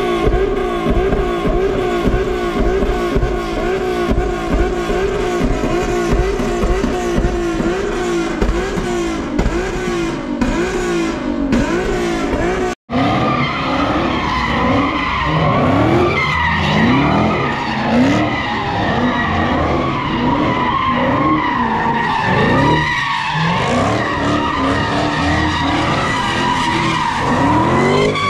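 Car doing drifts and donuts: the engine revs rise and fall quickly while the tires squeal. A sudden break about 13 seconds in, then a long, steadier tire squeal over the revving.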